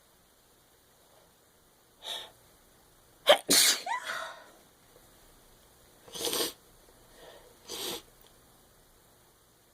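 A woman sneezing: a sharp, loud sneeze about three seconds in with a brief voiced cry, preceded by a short breath and followed by two shorter breathy bursts.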